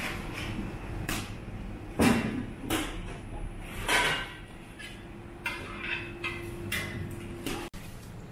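Clatter of kitchen work: a string of separate knocks and bangs, the loudest about two seconds in. A steady hum joins for a couple of seconds in the second half.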